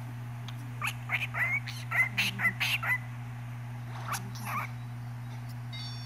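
A pet parrot chirping and chattering in quick, short calls: a run of them about a second in and a few more about four seconds in, over a steady low hum.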